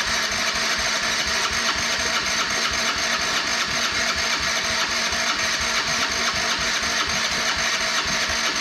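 Can-Am engine cranking over steadily on its electric starter without catching, one long continuous crank. It will not fire although it has spark, which the owner thinks means the carburetor is probably filled with water after the machine went for a swim.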